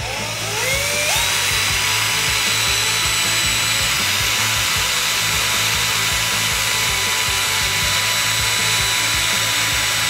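Handheld drill spinning a 3D printed RC rear axle through its input shaft. The whine rises in pitch over the first second as the drill speeds up, then holds steady, with the whirr of the axle's plastic differential gears and wheels turning.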